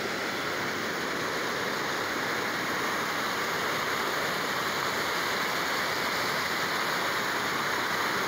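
Rain-swollen water rushing through rapids, a steady, unbroken rush of fast white water running high after heavy rain.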